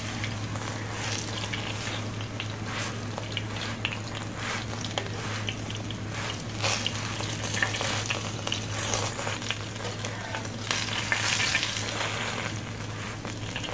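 Keema paratha frying in desi ghee on a flat iron tawa, second side down: a steady sizzle with frequent small crackles, the metal spatula now and then scraping as the paratha is turned and pressed, over a low steady hum.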